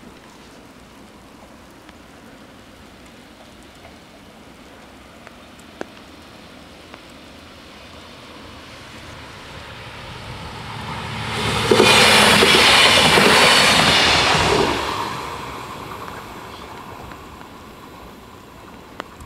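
Alstom Coradia LINT 41 diesel railcar approaching and passing over the level crossing: the sound swells, is loud for about three seconds around twelve seconds in, then fades away.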